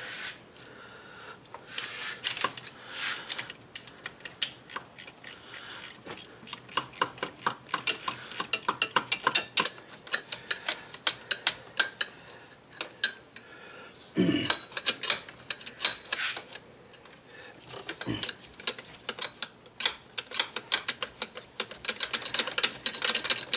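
Ratchet wrench clicking in two long runs of quick clicks, with a pause between them, as a bolt is run into the lower mount of a BMW's AC compressor. The bolt will not take up, which the owner suspects means stripped threads in the block.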